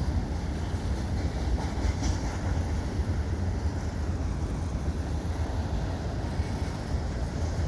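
Freight train rolling past: a steady low rumble of railcars on the track, with no horn.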